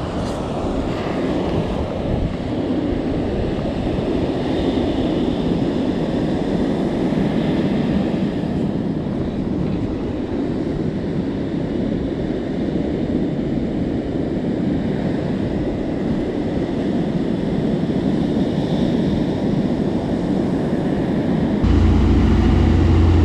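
Surf breaking on a beach with wind buffeting the microphone. Near the end it cuts to a boat's engine running with a loud, steady low hum over the churning of its wake.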